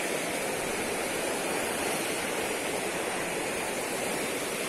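Fast, turbulent river running over a rocky bed: a steady rush of water.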